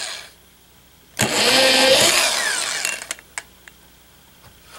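Handheld electric drill boring pilot holes into a wooden panel: one burst ends just after the start, then another runs for about a second and a half starting just over a second in, its pitch dropping as the bit bites into the wood. A few light clicks follow.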